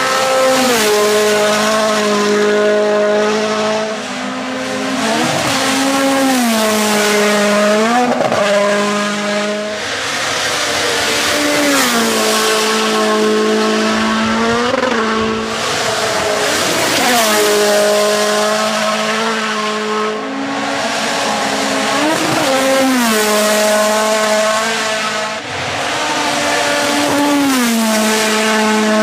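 Rally1 cars' turbocharged four-cylinder engines at high revs driving past one after another. The engine note repeatedly dips and climbs with each gear change and lift off the throttle.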